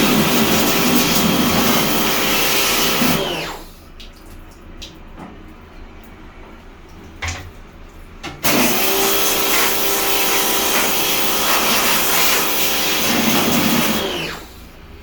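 A high-speed electric motor runs with a loud hiss, winds down after about three seconds, then switches on again sharply about eight and a half seconds in and runs until it winds down near the end.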